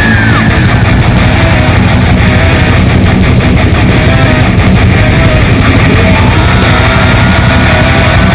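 Loud background rock music with electric guitar.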